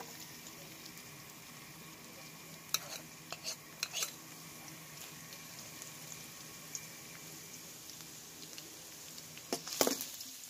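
Minced garlic sizzling steadily in hot cooking oil in a frying pan. A few sharp clicks come about three to four seconds in, and near the end a spatula stirs through the garlic with a cluster of louder taps against the pan.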